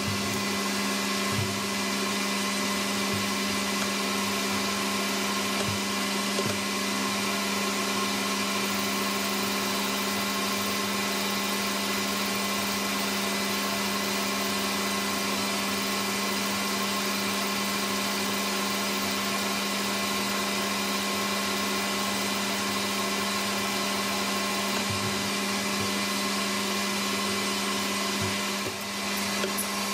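Metal lathe running at a steady speed, a continuous hum with several steady whining tones from its motor and drive, with the odd faint click.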